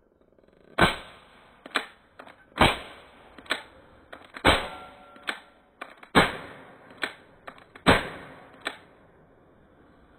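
4.5 mm pistol fired five times, about once every 1.7 seconds, each sharp shot followed under a second later by a quieter click.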